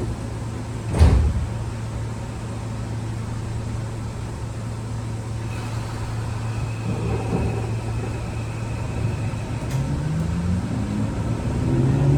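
Keio 8000 series electric train running, heard from inside the car: a steady low hum, with a sharp knock about a second in. Near the end the motor tones of its Toshiba PMSM VVVF drive rise in pitch.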